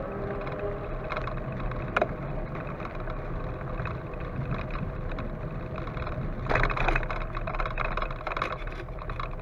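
A small motor vehicle's engine or motor running steadily while travelling slowly along a street, with road noise under it. There is one sharp click about two seconds in. From about six and a half seconds a louder clattering rattle starts as the wheels roll from asphalt onto brick paving.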